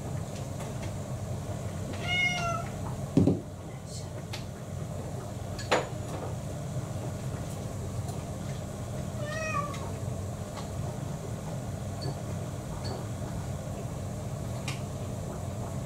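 Domestic cat meowing twice, two short slightly falling calls about seven seconds apart, begging for food at mealtime. A loud thump follows the first meow and a sharp click comes near the middle, over a steady low hum.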